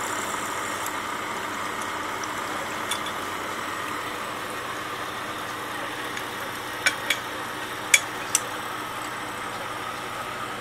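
CNC milling machine spindle running with an end mill cutting aluminium plate under coolant: a steady hiss and whir. A few short sharp knocks come about seven to eight and a half seconds in, as the cut-out part, milled without holding tabs, breaks free.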